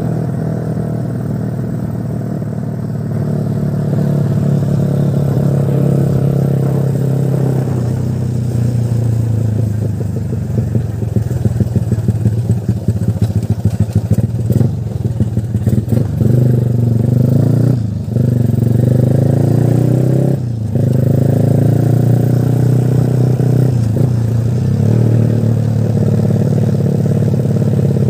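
Yamaha LC135 V1 motorcycle with a Spec 62 conversion, its liquid-cooled single-cylinder four-stroke engine running steadily as it is ridden. The revs go uneven and choppy through the middle, and the engine note drops out briefly twice later on.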